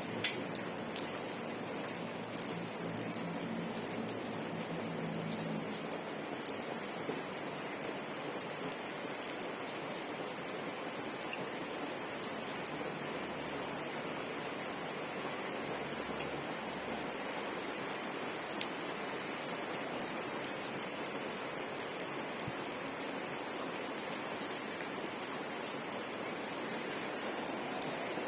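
Steady rain falling, an even continuous patter, with one sharp click just after the start.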